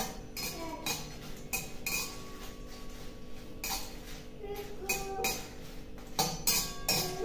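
A stirring utensil scraping and clinking against a pan as dried red chillies fry in mustard oil, in about ten irregular strokes.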